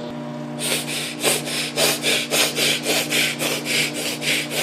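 Microwave oven running with a steady hum. Over it, from about half a second in, a rhythmic rasping noise at about four strokes a second.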